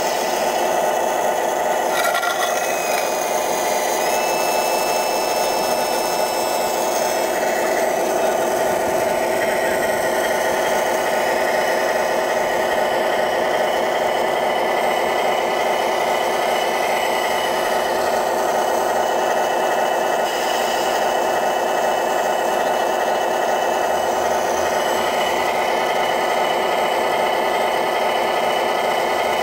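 RC Wedico Cat 966 model wheel loader running: a steady mechanical whirring and grinding from its drive and hydraulics, many tones at once, shifting slightly in pitch as it moves and works the bucket.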